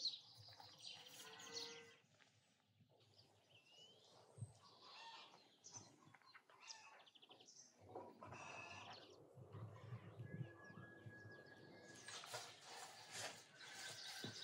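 Quiet rural outdoor ambience with scattered faint bird chirps and one short held whistle-like note, then a faint rustling hiss over the last couple of seconds.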